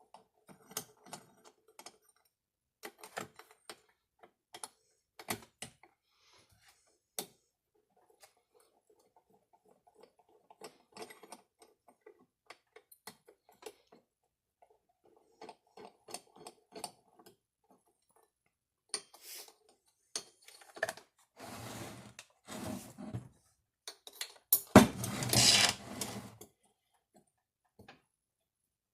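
Scattered clicks and metallic clinks of hand tools and parts being handled while a chainsaw is taken apart, then a few seconds of louder rattling and rasping near the end.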